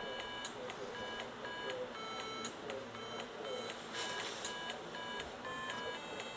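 Background music of electronic beeping notes: short, steady tones that change pitch several times a second in a simple melody.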